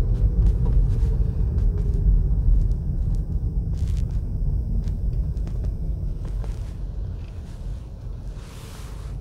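Low road and engine rumble inside a moving car's cabin, growing quieter over the second half.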